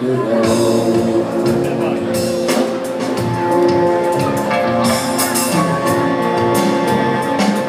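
Live band playing the instrumental intro of an Italian pop song through a PA, with drums marking the beat under guitar and held chords; the vocals have not yet come in.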